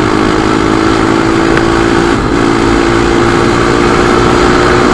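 Crossfire 250 dirt bike's engine running at a steady pitch, with a brief dip about two seconds in.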